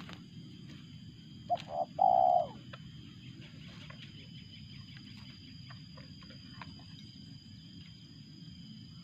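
A caged decoy spotted dove (tekukur) cooing once, about one and a half seconds in: two short notes and then one long drawn-out note. It is the call a trapper's decoy gives to draw wild doves in. A faint steady high whine runs underneath.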